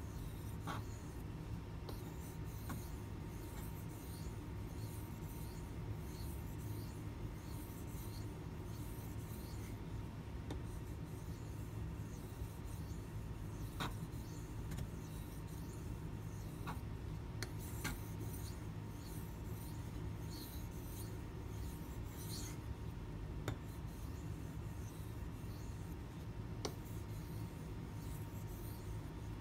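Kitchen knife blade drawn lightly back and forth across a water stone in finishing strokes: soft, repeated scrapes at a fairly even pace, with a few sharp clicks. The light pressure is for a finer edge.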